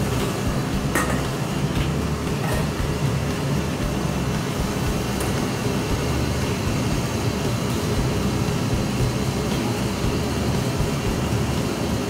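Steady roar of a high-pressure gas wok burner under a steaming wok, with a few sharp metal clinks in the first few seconds.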